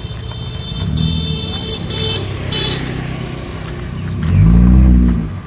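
Car engine of a Toyota Camry 3.0 built into a Bugatti La Voiture Noire replica, running and then revved once about four seconds in, the exhaust note rising and dropping back.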